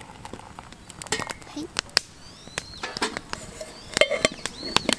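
Irregular sharp clicks and snaps, with two short high arching whistled calls.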